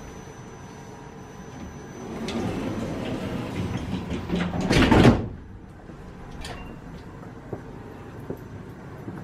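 Electric double sliding passenger door of a Newag 14WE electric multiple unit closing. A swelling rush as the door leaves move ends in a loud shut about five seconds in and cuts off sharply. Afterwards a quieter steady hum with a few faint clicks.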